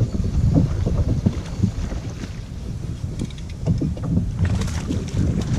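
Wind buffeting the microphone: a rough, uneven low rumble with irregular gusty spikes.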